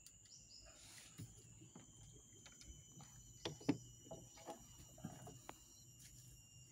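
Steady high-pitched drone of insects, with scattered light clicks and knocks throughout, the two loudest about three and a half seconds in.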